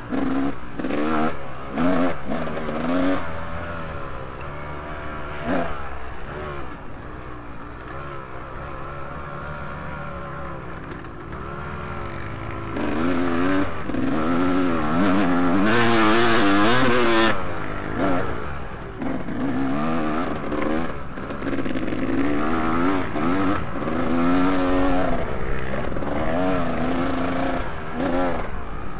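Motocross motorcycles racing on a dirt track, engines revving up and falling off again and again through gear changes and corners, loudest about halfway through.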